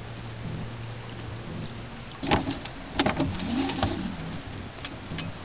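Knocks and a short creak from a small sailing dinghy's tiller and fittings being handled, the loudest knocks about two and three seconds in, over a low steady hum.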